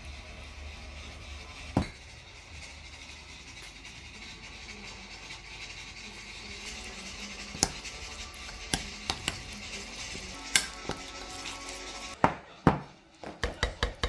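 Background music, with a metal spoon now and then clinking and scraping against a plastic tub and a glass measuring cup as a chilli-paste sauce is scooped and stirred. A quick run of clinks and taps comes near the end.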